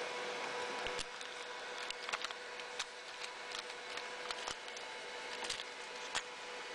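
Scattered small clicks and taps from a Sony WM-GX674 cassette walkman being handled and its cassette door opened, over a steady hiss.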